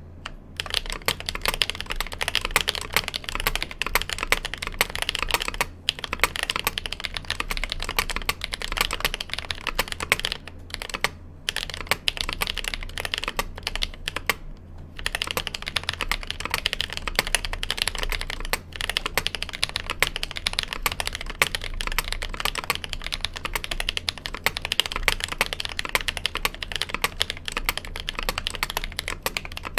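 Steady fast typing on a mechanical keyboard with lubed Holy Panda tactile switches on a steel plate in a Noxary X60 case, GMK keycaps, with a few short pauses; the spacebar strikes are noticeably louder than the other keys.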